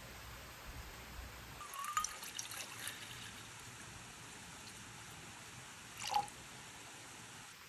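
Faint water dripping: a few small drops, one cluster about two seconds in and a sharper single drop near the end, over a low steady hiss.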